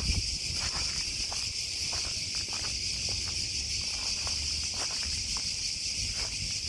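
Steady high-pitched drone of an insect chorus, with scattered light crunching footsteps on dry pine needles and earth.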